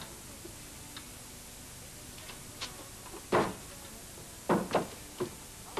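Irregular small clicks and knocks of a picture frame being handled, the loudest about three and a half seconds in and two close together around four and a half seconds in.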